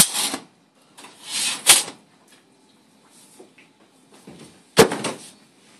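Metal Bucky cassette tray of an X-ray table being handled: a sharp clack, then a sliding rush that ends in a knock about a second and a half in, and another loud clack with a brief rattle near the end.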